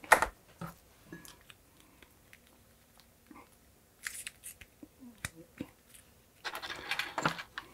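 Hands handling a soldering iron's connector plug and multimeter test probes: a sharp click at the start, then scattered light clicks and taps, with a longer rustling, scraping stretch near the end as the probes are fitted to the plug pins.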